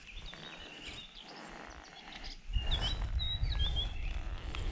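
Small birds chirping, short high calls repeating. About halfway in, a low rumble starts and stays under them.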